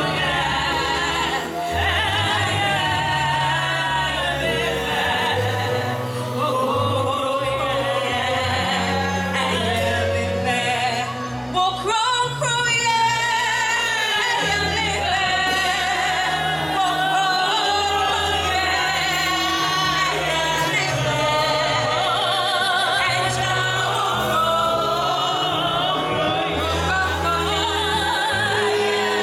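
Gospel music: singing over an instrumental accompaniment, with a bass line that steps from note to note.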